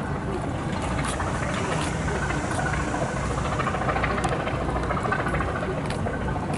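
Steady low rumble of an idling engine, with light rattles and a few sharp clicks.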